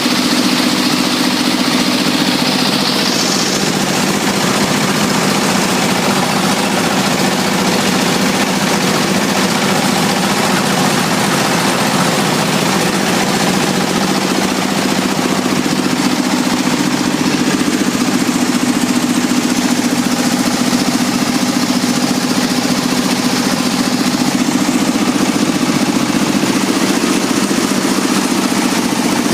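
Rice milling machine running steadily: a loud, even mechanical drone with a constant hiss over it.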